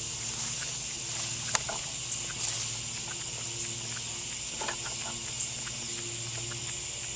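Strange noises from a wood pile: scattered small clicks and taps, a few sharper ones about one and a half to two and a half seconds in, over a steady high-pitched trill.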